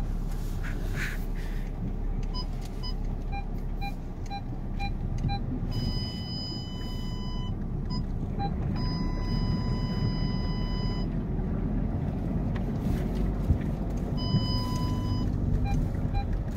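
Inside a Volkswagen Tiguan crawling along a rough forest track: steady engine and tyre rumble, with parking-sensor beeps. The beeps come in short pulses about twice a second and three times turn into a continuous tone, a sign that the sensors detect something very close to the car.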